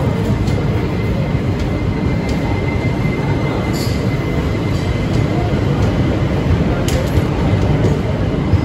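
Indian Railways express passenger coaches rolling past a platform: a loud, steady rumble of wheels on rail, with a faint thin squeal held through most of the passing and a few sharp clicks.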